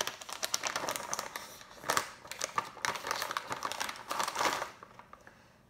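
A printed snack bag crinkling and rustling as it is torn and pulled open by hand; the crackling stops shortly before the end.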